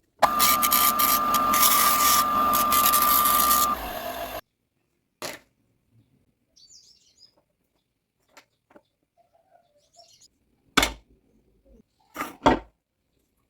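A woodworking power tool's motor running with a steady whine, cutting off abruptly about four seconds in. Then a few sharp knocks, two close together near the end, and a few faint high chirps.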